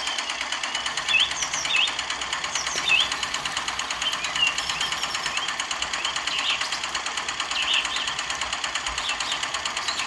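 Miniature model single-cylinder diesel engine running a small belt-driven water pump, with a rapid, steady mechanical clatter of several beats a second.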